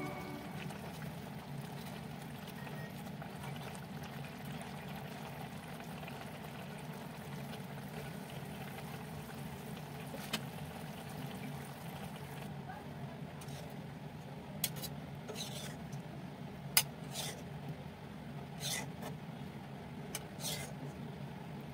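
Egg curry simmering in a kadai: a steady low bubbling and hiss. In the second half come a few sharp clicks of a spoon or spatula against the pan.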